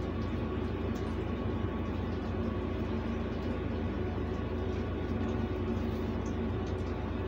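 A steady motor hum with an even whirring noise from a running kitchen appliance, with a few faint light ticks over it.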